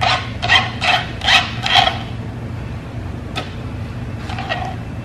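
Quick scraping strokes across a plastic cutting board, five in a row about half a second apart, then a single click and one fainter scrape, as chopped green onions are gathered up for the salad.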